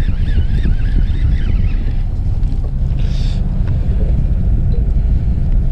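Fishing boat's engine running with a steady low drone, with wind on the microphone. A brief hiss about three seconds in.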